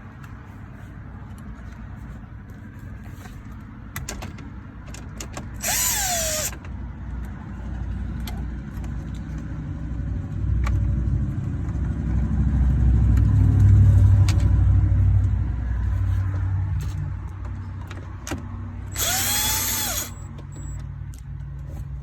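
Milwaukee cordless impact driver run in reverse in two short bursts of about a second each, the motor's pitch rising and falling, backing out the 7 mm bolts that hold the car radio's mount. Between the bursts there is a low rumble with scattered light clicks and knocks as the work goes on.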